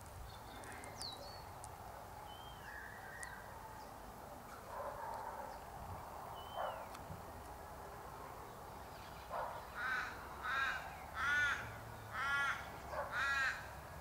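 Australian raven calling in the background: a run of about six drawn-out caws, roughly one a second, through the second half. Faint chirps and whistles of small birds come before it.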